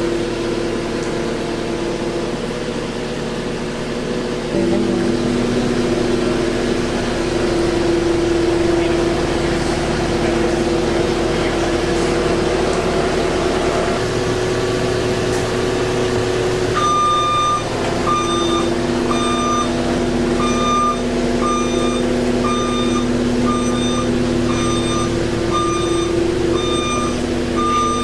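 A vehicle engine running steadily, joined about two-thirds of the way in by a reversing alarm beeping about once a second.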